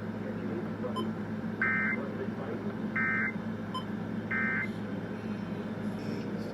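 Emergency Alert System end-of-message signal: three short bursts of two-tone digital data screech, about 1.4 s apart, closing out the statewide monthly test. A steady low hum runs underneath.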